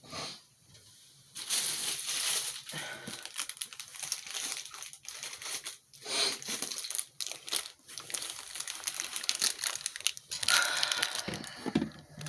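Irregular crinkling and rustling handling noise starting about a second and a half in and running on with many small crackles.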